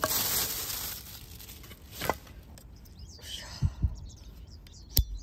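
A plastic bag rustling as split firewood is handled, then a few separate dull knocks of firewood pieces and a folding saw being set on the wood, the loudest knock near the end.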